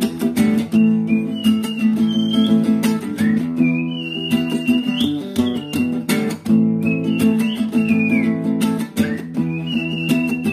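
Background music: strummed acoustic guitar chords with a high melody line that slides and bends in pitch over the top.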